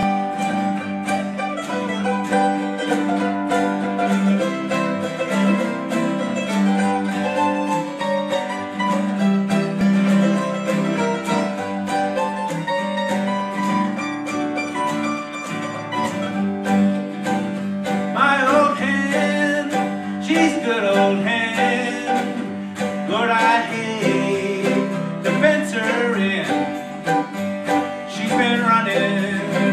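Small acoustic country string band playing: lap steel guitar, acoustic guitar and upright bass in an instrumental opening, with a man's singing voice coming in about 18 seconds in.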